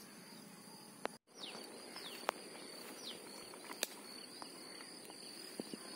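Faint outdoor ambience: a steady high insect drone with several short, falling bird chirps and scattered soft clicks. The sound drops out completely for a moment about a second in.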